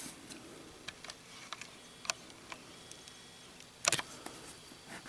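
Light, scattered clicks and taps from a Zippo lighter and its box being handled, with a louder clatter about four seconds in.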